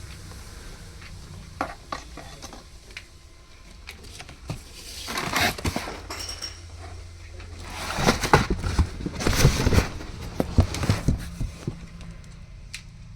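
Metal clinking and clattering: scattered sharp clicks, then two louder runs of rattling knocks, over a low steady hum.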